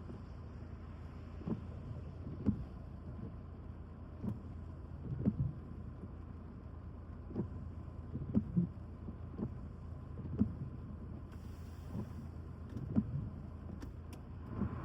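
Wind buffeting the microphone in irregular low thumps, roughly one a second, over a steady low rumble.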